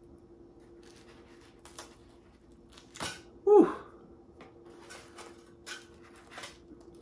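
Foil liner and cardboard pizza box crackling and rustling in short bursts as hot pizza slices are pulled apart. About three and a half seconds in comes a short, loud vocal exclamation that falls in pitch.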